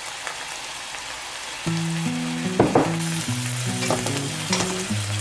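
Red curry paste and palm sugar sizzling in hot oil in a nonstick wok, with a spatula scraping and stirring through it. Background music with held notes comes in about a second and a half in.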